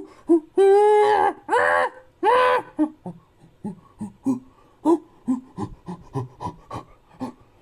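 Cartoon young gorilla's voice: three loud pitched calls, then a run of short, quick pants.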